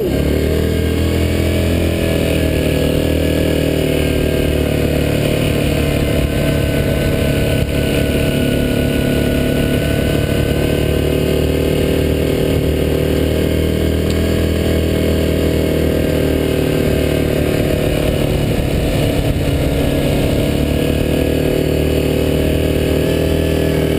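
Yamaha Grizzly 700 ATV's single-cylinder engine running steadily while riding along a dirt trail, the engine pitch easing down briefly near the end before picking back up.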